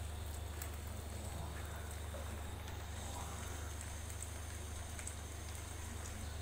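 Faint dripping and light scraping as soaked tamarind and pomegranate-seed pulp is pressed through a steel strainer into a pot of kadhi, over a steady low hum.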